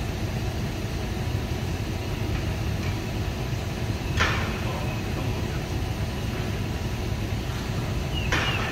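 Two sharp knocks about four seconds apart from work at the base of a steel lattice antenna tower, over a steady low rumble.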